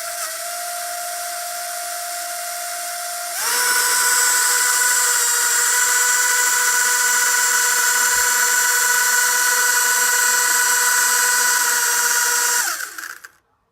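Small electric motors of a Protocol Dronium Zero toy drone running without propellers: a steady high whine that jumps louder and higher about three and a half seconds in, holds, then winds down and stops near the end.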